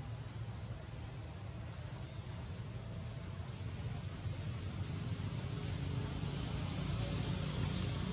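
Insect chorus droning steadily at a high pitch, with a low steady rumble underneath.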